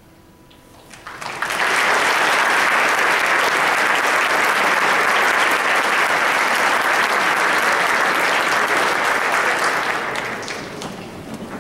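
Concert audience applauding: the clapping starts about a second in, holds steady, then dies down near the end.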